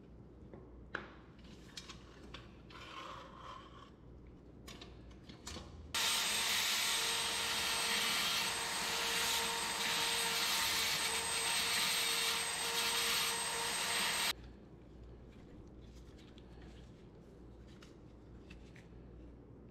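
Rotary tool on a flexible shaft running for about eight seconds, a steady whine with grinding, as its bit works at the axle end in a wheel hub of a pressed-steel toy truck to free the wheel; it starts and stops abruptly. Before and after it, light clicks and rattles of the metal parts being handled.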